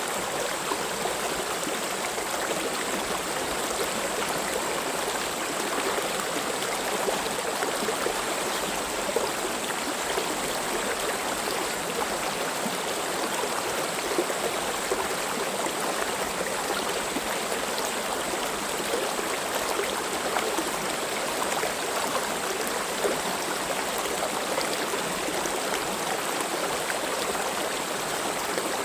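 Mountain stream flowing steadily over rocks, a constant rushing with small splashes and gurgles.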